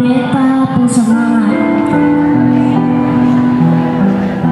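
Slow, gentle music with long held notes that change step by step. A voice runs over it for the first second or so.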